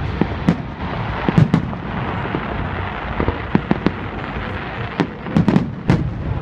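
A fireworks display: a rapid series of sharp bangs from bursting shells, bunched in quick clusters, over a steady background rumble and hiss.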